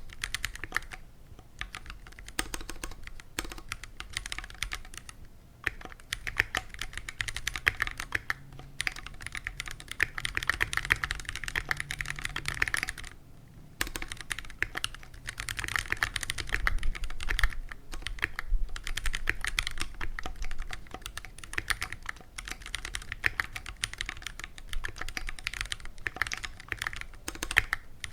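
Fast, continuous typing on a stock, unmodified Keychron Q1 aluminium mechanical keyboard with Phantom Red linear switches: a dense run of key clacks broken by a few brief pauses, the longest about thirteen seconds in.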